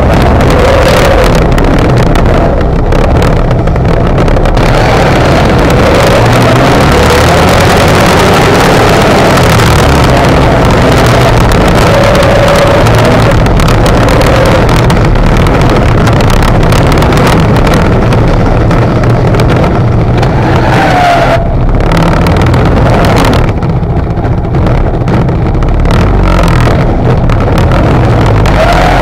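ATV engine running as its front plow blade pushes and scrapes snow and slush, loud and rough with a heavy rumble. Brief squeaks come through now and then, and the loudness dips briefly about three-quarters of the way through.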